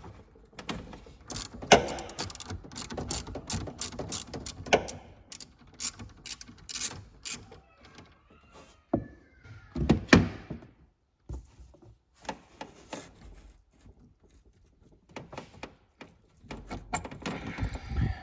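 Ratchet wrench with a 10 mm socket clicking and clattering as the nut on the negative battery terminal is loosened, with tools and the cable clamp being handled. A louder thunk comes about ten seconds in.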